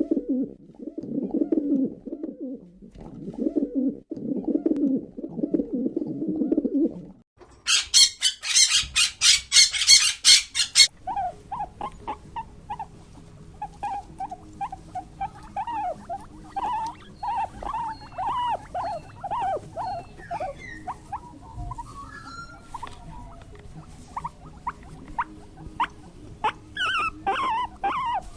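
A run of animal calls. First comes a low cooing about 7 seconds long. Then a loud, fast, high-pitched rattling trill lasts about three seconds. Last come many short chirps or squeaks, repeated over and over.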